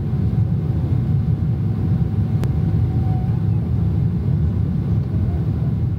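Steady low vehicle rumble, with one sharp click about two and a half seconds in.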